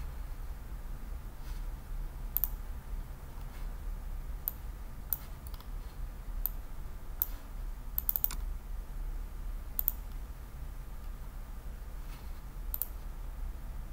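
Computer mouse buttons clicking as folders are selected and opened: about a dozen sharp clicks at irregular intervals, some in quick pairs (double-clicks), over a steady low hum.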